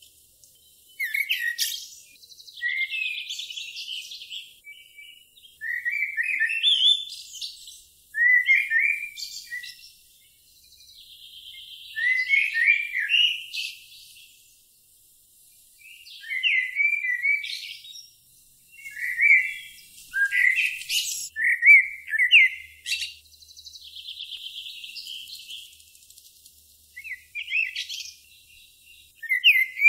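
A songbird singing repeated short, high warbling phrases every second or two with brief pauses between, some phrases ending in a buzzy trill.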